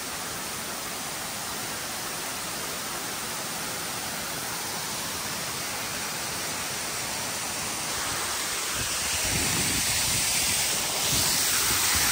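Steady rush of falling water from a waterfall, growing louder over the last few seconds. Near the end, gusts of wind off the water buffet the microphone with a low rumble.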